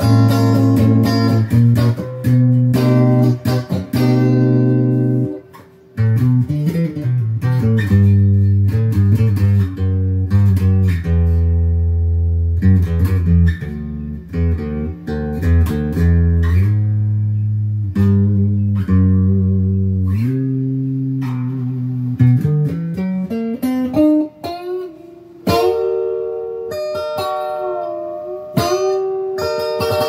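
Squier Debut Series Stratocaster electric guitar played through a Crate amp on a two-pickup in-between setting, with the hum gone: low riffs on the bass strings with ringing notes, a brief break about six seconds in, then lead lines with string bends near the end.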